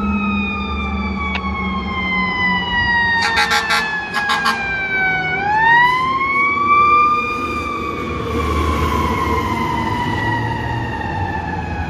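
Fire truck's mechanical siren winding slowly down, spun back up about five seconds in, then winding down again, with a quick series of short air-horn blasts about three to four seconds in. The truck's engine rumbles low underneath.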